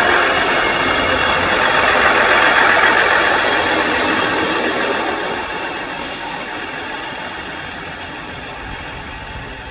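Freight train passing on the rails: a steady rumble and rail noise, loudest about two to three seconds in, then fading steadily as the train moves away.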